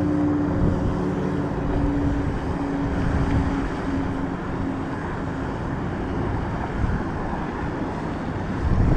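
A distant engine droning steadily, fading away about halfway through, over a low rumble of wind on the microphone.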